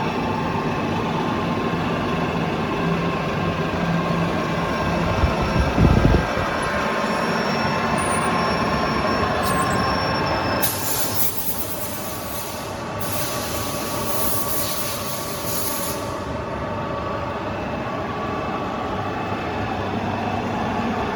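Radial drilling machine running as it drills a metal flange: a steady mechanical drone with several steady tones. A brief low rumble about six seconds in, and a high hiss from about eleven to sixteen seconds in.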